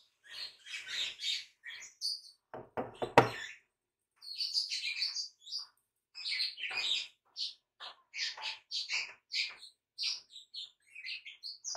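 Birds chirping in quick, irregular high bursts, with a few sharp knocks about three seconds in.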